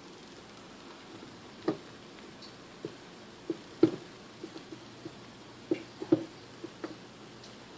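Irregular sharp pops and crackles of hot fat and juices spitting from a whole chicken roasting in a vertical countertop rotisserie oven and dripping into its drip tray, over a faint steady hiss. The loudest pops come about four seconds in and again about six seconds in.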